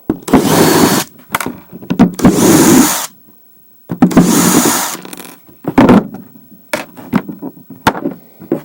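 Electric screwdriver running in three short bursts, backing screws out, followed by lighter clicks and knocks of parts being handled.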